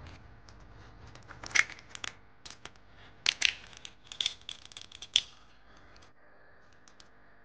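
Whole walnut shells cracked and pried apart by hand: a run of sharp, irregular cracks and snaps of the woody shell, the loudest about one and a half seconds in, twice around three and a half seconds, and once more near five seconds.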